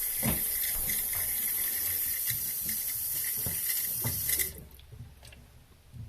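Water hissing steadily through a slow-filling Siamp toilet cistern fill valve, the usual cause being a worn rubber diaphragm washer. The hiss cuts off suddenly about four and a half seconds in as the water supply is turned off, followed by a few faint knocks.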